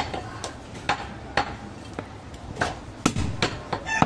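Butcher's cleaver knocking against a wooden chopping block while cutting goat meat, in about eight irregular strikes that come faster near the end.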